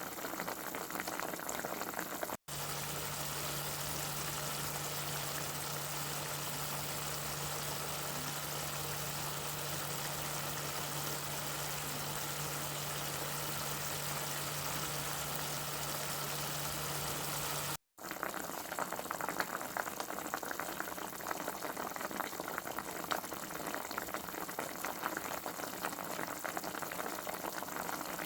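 Liquid boiling and bubbling in a cooking pot, a continuous crackling hiss, with two abrupt cuts about two and a half and eighteen seconds in; in the stretch between the cuts a steady low hum runs underneath.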